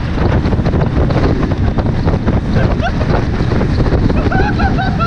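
Heavy wind buffeting the microphone on the bow of a moving boat. Near the end there are a few short laughs.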